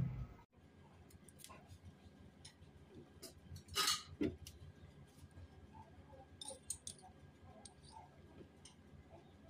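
Quiet kitchen handling noises around an open cooking pot: scattered light clicks and ticks, with a short, louder scrape-like rustle about four seconds in.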